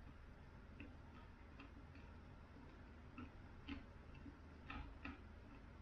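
Faint, irregular crunches of popcorn being chewed with the mouth closed, a few a second, some slightly louder near the end.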